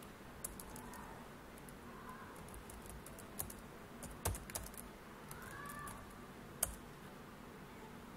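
Typing on a computer keyboard: scattered, irregular key clicks, a few of them sharper and louder than the rest.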